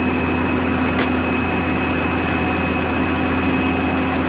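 Heavy machinery running steadily: an unchanging low drone with a constant hum and a thin high whine over it, and a faint click about a second in.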